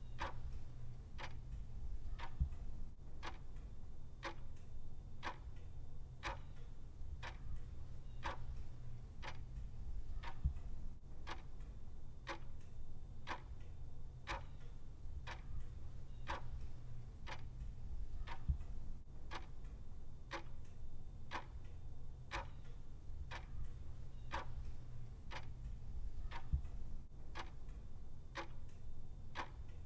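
Mechanical clock ticking at a steady, even rate, over a faint constant low hum.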